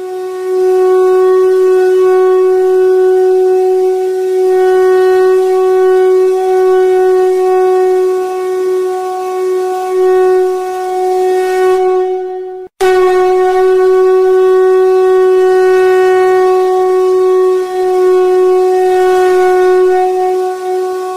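Background music: a single drone note held at one steady pitch with strong overtones, as from a wind instrument. It cuts out abruptly for a split second about two-thirds of the way through, then carries on.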